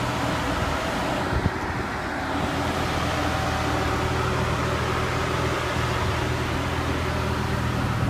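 A machine running steadily with a low hum, and one brief knock about a second and a half in.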